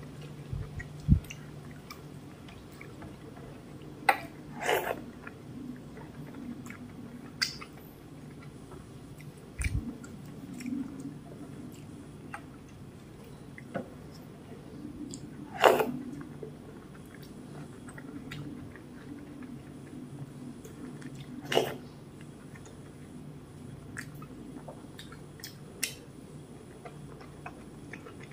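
Close-up eating sounds: cooked rice soaked in milk being squished and mixed by hand in a steel plate, and soft chewing, heard as scattered wet clicks and smacks over a low steady hum.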